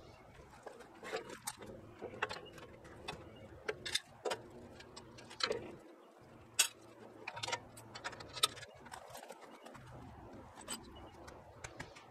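Scattered light clicks and knocks of steel sawmill track parts and hardware being handled, irregular, the sharpest about six and a half seconds in.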